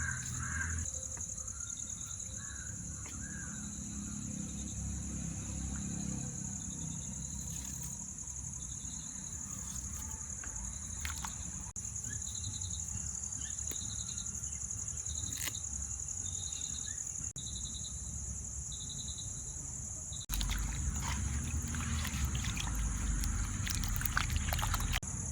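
Rural outdoor ambience: a crow cawing at the start, then a small bird's short high chirps repeated about once a second, over a steady high hiss. About 20 seconds in, a louder low rumbling noise starts suddenly.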